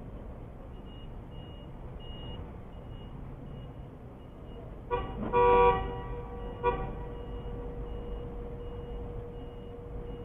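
A car horn blares in one loud blast lasting under a second about halfway through, then gives a short second toot, a warning at a vehicle reversing into a stopped car. Underneath, a faint high beep repeats about twice a second.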